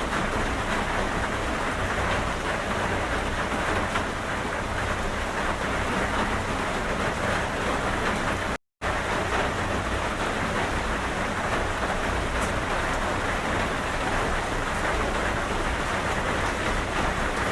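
Steady, heavy rain falling, a dense even hiss with no distinct drops or rumbles standing out. The sound cuts out completely for a split second about halfway through.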